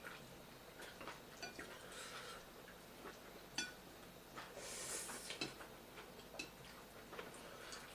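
Quiet eating sounds: scattered soft clicks and clinks of utensils against plates, with one clearer ringing clink partway through and a brief hissy slurp-like sound about five seconds in.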